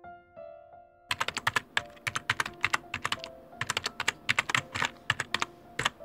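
Soft piano music, joined about a second in by fast, irregular runs of keyboard-typing clicks that go on over the music almost to the end.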